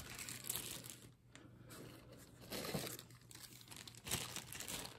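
Faint rustling and crinkling of a plastic zip-top bag of jewelry being handled, in short irregular bursts.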